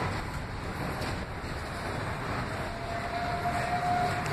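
R143 subway train pulling away along elevated track: a steady rumble of wheels on rails. A thin, steady high tone comes in about two-thirds of the way through and fades just before the end.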